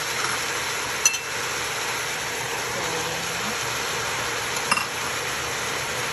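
Beef with chopped onion, carrot and celery frying in oil in a pot: a steady sizzle, with a sharp metal clink about a second in and another near five seconds.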